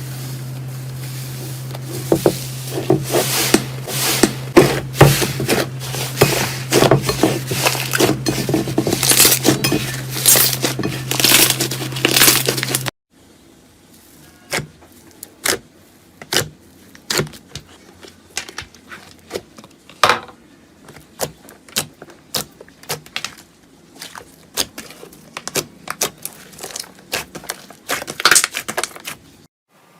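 Slime being squeezed and pressed by hand, making dense sticky clicks and crackles over a steady low hum. After a cut about a third of the way in, a quieter stretch follows with sparser clicks and pops.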